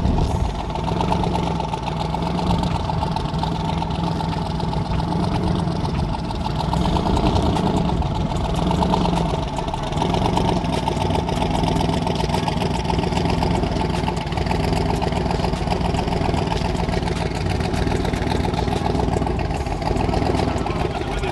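A drag car's engine idling loudly and steadily at the starting line, with a rough, pulsing beat and its pitch wavering slightly now and then.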